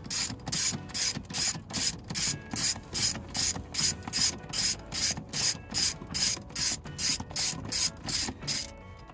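A hand ratchet with a T15 Torx bit clicking in steady back-and-forth strokes, about two to three a second, backing out a Torx screw. The clicking stops shortly before the end.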